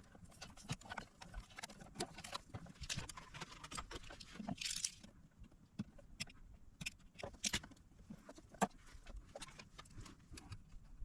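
Irregular small clicks, taps and rustles of hands and tools handling wiring inside an electronics unit, with a short hiss about four and a half seconds in.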